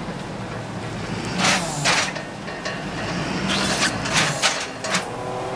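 Tow truck engine running steadily as the truck reverses its wheel-lift under the front wheels of a Ford E350 cab and chassis, with several sharp clanks and rattles from the lift and chassis.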